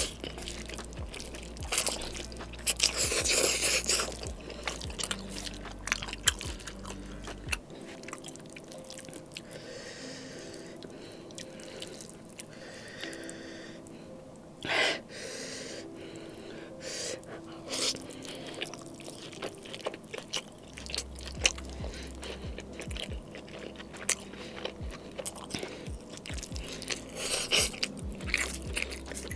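Close-miked eating sounds: noodles slurped in and chewed with chunks of steak, full of small wet mouth clicks, with a long slurp about three seconds in and shorter ones around the middle and near the end.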